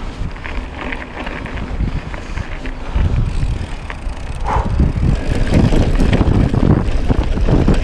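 Mountain bike riding fast downhill, picked up on an action camera: tyre rumble and rattling of the bike with wind on the microphone. It turns rougher and louder about three seconds in, with many quick knocks as the bike leaves the smooth path for bumpy singletrack.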